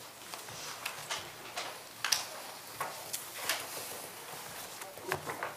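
Room tone with a scattered handful of short rustles and light knocks, which fit papers being handled at the council table near the microphones, and faint murmuring.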